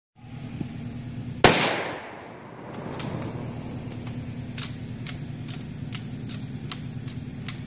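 A single loud rifle shot about a second and a half in, fading over about half a second. Faint sharp ticks follow every fraction of a second over a steady low hum.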